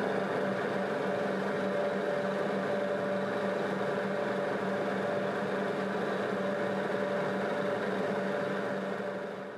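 Film projector running: a steady mechanical whirr and hum that fades out near the end.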